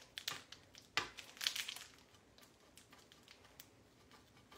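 A block of Swiss cheese being grated on a flat metal grater: a few short scraping strokes in the first two seconds, the sharpest about a second in, then fainter strokes.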